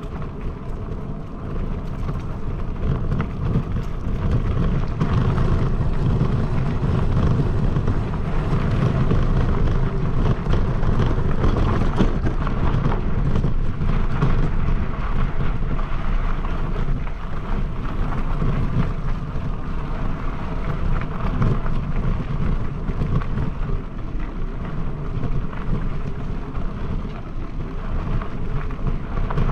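Mountain bike rolling along a dirt trail: wind rushing over the camera microphone and tyres rumbling on the ground, with a steady stream of small crackles and rattles.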